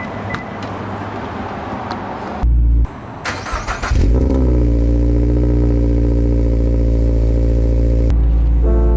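Car engine starting: a rough cranking patch, then it catches with a brief rise in pitch and settles into a loud, steady run that cuts off near the end.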